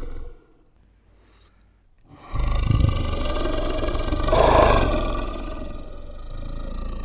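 Monster roar sound effect: the tail of one roar fades out, and after about two seconds of quiet a long, deep roar sets in, swells about halfway through and slowly tails off.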